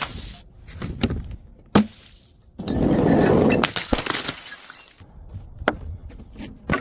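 Glass bottles breaking: a few sharp knocks, then, about two and a half seconds in, a loud shattering crash lasting about a second, followed by scattered clinks of the pieces.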